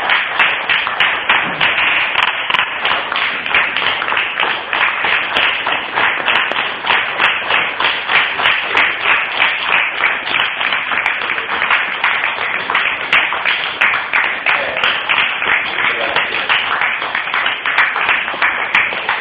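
Audience applauding, a long, dense round of clapping.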